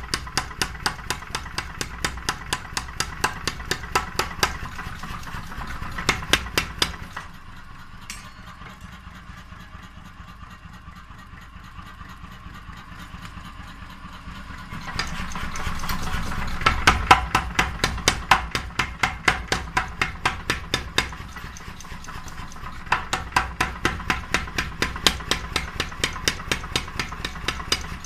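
Rapid, evenly spaced hammer blows on metal, about three a second, over a low steady hum. The blows stop for several seconds partway through, then start again.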